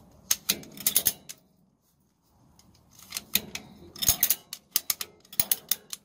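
Ratchet strap buckle being cranked by hand to tighten the strap, its pawl clicking in quick runs of sharp clicks, with a pause about two seconds in before the clicking resumes.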